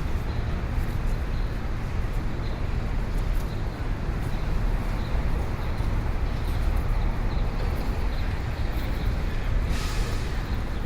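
City street ambience: a steady, heavy rumble of traffic, with a short hiss about ten seconds in.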